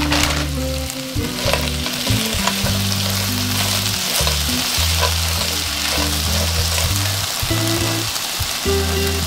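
Peeled raw shrimp and chopped red onion sizzling as they fry in an enameled cast-iron pot, stirred with a silicone spatula.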